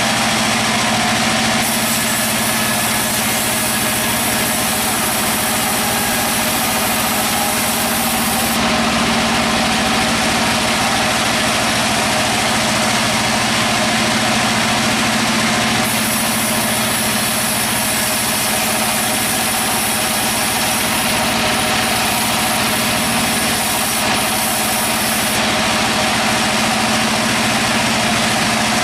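Sawmill machinery running with a steady engine-like hum under a dense hiss. A sharper high hiss comes in twice, for several seconds each time.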